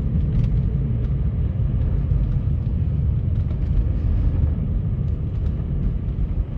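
Steady low rumble of a car driving on a snow-covered, slippery road: engine and tyre noise at an even level.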